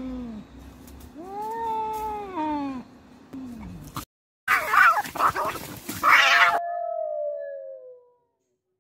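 Two cats in a standoff, growling and yowling in long rising-and-falling caterwauls. After a brief break about four seconds in come loud, harsh screeches, ending in a drawn-out falling wail.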